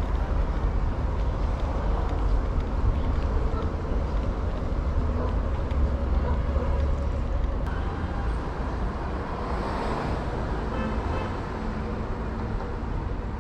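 Street traffic noise: a steady low rumble of road vehicles with a wash of city background sound.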